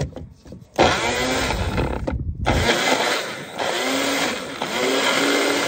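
Magic Bullet blender motor running, grinding a cup of roasted peppers, garlic and tomatoes filled past its fill line. It starts about a second in, stops briefly near two seconds, then runs again.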